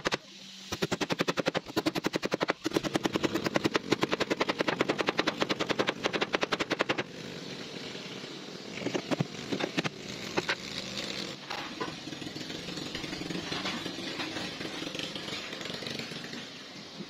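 Hammer driving nails into a wooden deck plank at a boat's bow, many quick even blows a second, which stop about seven seconds in. Then come a few scattered knocks and rustling handling noise.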